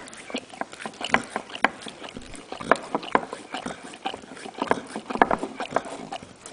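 Bernese mountain dog licking frozen yogurt out of a small cup: quick wet tongue smacks and clicks, irregular, several a second.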